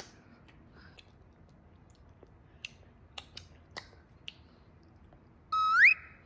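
A toddler eating hard-boiled egg with his fingers: a few faint, scattered mouth clicks and smacks of chewing. Near the end comes a short, loud whistle-like tone that holds and then slides up in pitch.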